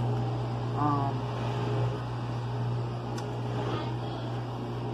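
A steady low machine hum, with a short spoken sound about a second in and a faint click about three seconds in.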